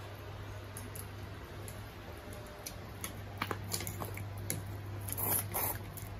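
Plastic squeeze bottle of chili sauce being squeezed onto a plate of spaghetti, giving a couple of short sputtering spurts about five seconds in. A few light clicks of cutlery against plates, over a low steady hum.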